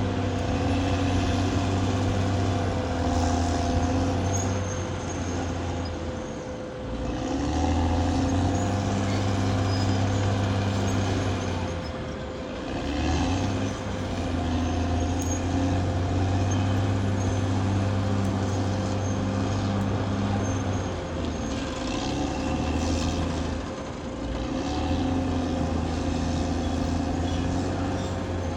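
Caterpillar D6R XL bulldozer's diesel engine running hard under load, easing off briefly three times before pulling again, with a steady whine and a rattle from the machine above it.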